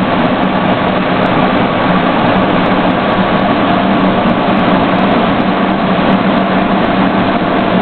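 Steady engine and road noise heard from inside the cab of a military convoy vehicle on the move, with a constant drone.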